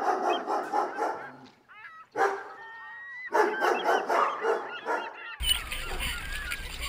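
A dog barking in quick yelps, with short high whines between the barks. About five seconds in this gives way to a steady low rumble, wind or water against the camera.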